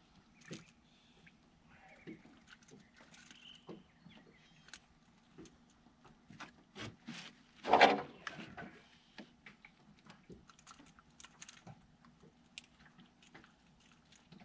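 Scattered small clicks, knocks and water sounds as a bass is landed by hand over the side of a jon boat, with one loud, short burst of noise about eight seconds in. A faint steady hum runs underneath.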